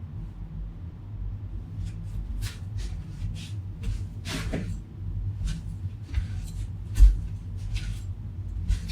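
Irregular sharp clicks, snaps and scrapes of hard plastic as an Apple wall adapter is worked at to break it open, over a low rumble of handling. A louder knock comes about seven seconds in. The adapter is holding up and does not give way.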